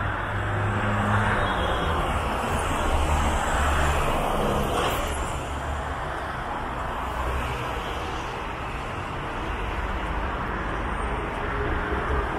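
Steady road traffic noise from a busy multi-lane road: a continuous rumble and tyre hiss of passing cars that swells and eases gently.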